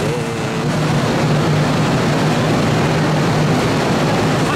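Steady low hum and even noise from a stationary electric train's onboard equipment idling at the platform, with a voice briefly in the first second.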